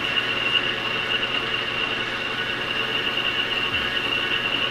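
Engine lathe running steadily with a constant high whine, while a Scotch-Brite pad is held against the spinning prop shaft to polish it.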